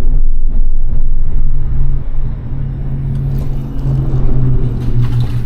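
Road traffic crossing the bridge overhead: a loud, steady low rumble that swells and eases slightly over a few seconds.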